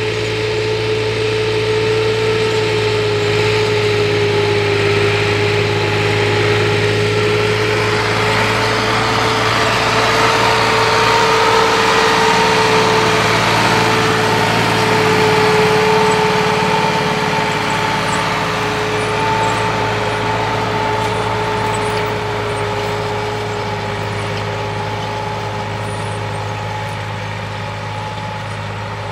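Tractor engine running steadily under load as it pulls a disk plough through dry soil, with a steady high tone over the engine note. It grows slightly louder midway and eases off toward the end.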